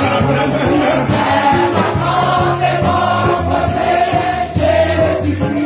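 A church congregation singing a Haitian Creole worship song together in chorus, with instrumental accompaniment under the voices.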